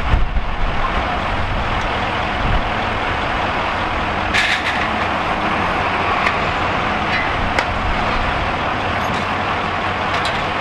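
Fire engine running steadily at the kerb with its pump on, water from a side discharge outlet pouring onto the pavement. A short hiss comes about four and a half seconds in.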